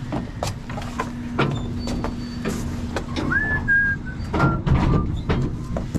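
Freight elevator running, a steady hum and low rumble with scattered knocks and rattles from the loaded cart; the hum stops about three seconds in, and a short whistle, rising then held, comes at about the same time.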